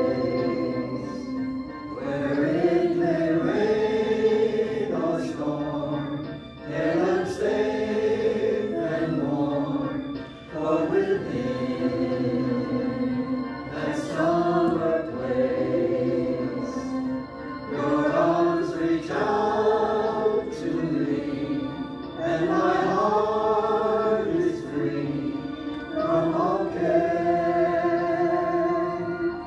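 Show choir singing, several voices together in sung phrases with short breaks between them.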